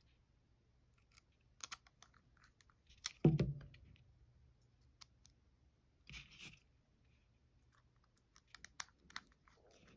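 Small metallic clicks and ticks of tiny screws being handled and started into a Spyderco Para 3 folding knife's handle scales with a precision screwdriver, with a cluster of quick clicks near the end. A single dull knock about three seconds in and a short rustle about six seconds in.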